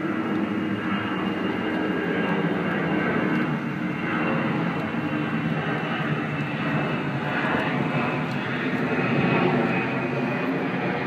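A steady engine-like drone, even in level, with several steady tones running through it.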